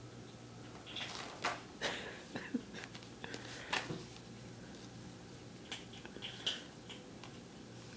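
A kitten's claws scratching and catching on denim jeans as it climbs and paws at a person's leg: a run of short scratchy clicks and rustles in the first half, a few more later.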